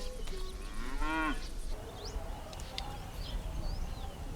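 A cow mooing once about a second in, a single call that rises and falls in pitch, followed by small birds chirping.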